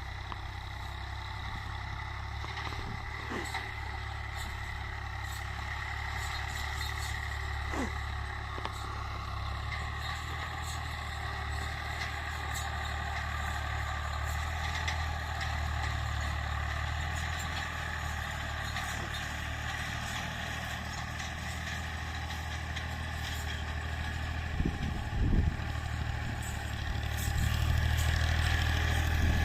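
Tractor engine running steadily, with a few brief knocks a little before the end and the engine growing louder near the end.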